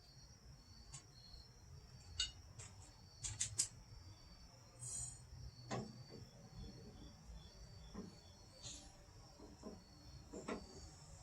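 Crickets chirping steadily, with scattered sharp clicks and knocks from hand work on a car door. The loudest is a quick cluster of taps about three and a half seconds in.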